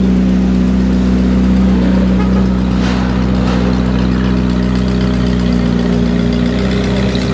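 Ferrari V8 supercar engines idling as the cars crawl along, a steady note that holds its pitch with no revving.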